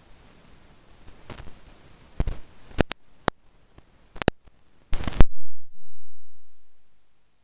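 A handful of sharp clicks and knocks over a faint hiss, the loudest group about five seconds in. A low dull thud follows and fades away over about two seconds, then the hiss cuts out.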